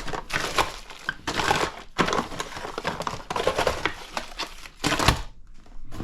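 Hands rummaging through tools and parts, a run of irregular crinkling, rustling and clattering noises.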